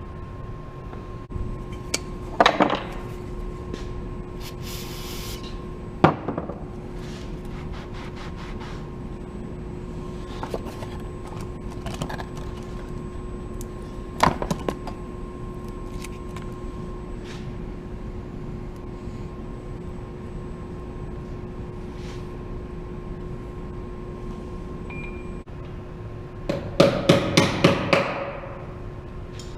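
Wheel-balancing work at a tire balancer: a few separate knocks of tools and metal over a steady hum. Near the end comes a quick run of about half a dozen sharp taps.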